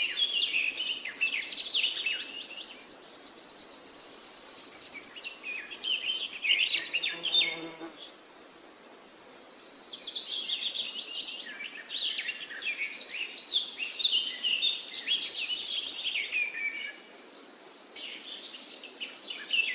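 A songbird singing two long, rapid, warbling phrases of high notes, each rising into a fast buzzy trill, with a short pause between them.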